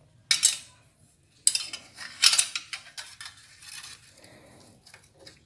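Thin metal exhaust hanger clamp scraping and clinking against a metal muffler as it is slid around the silencer by hand. A brief clink comes near the start, then a longer run of scrapes and clinks from about a second and a half in.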